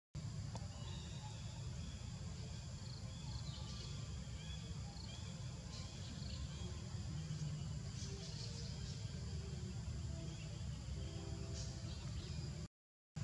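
Forest ambience: a steady low rumble with scattered short, high chirps of wild birds and insects. The sound drops out completely for a moment near the end.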